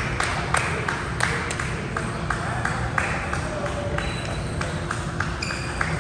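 Court sounds of an indoor ball game: irregular knocks of a bouncing ball and feet on the floor, with a few short high squeaks of shoes, the loudest pair near the end.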